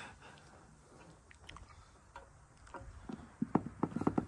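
Hands working a hose back through a tight hole: scattered small clicks, turning into a quick run of sharp clicks and knocks in the last second or so.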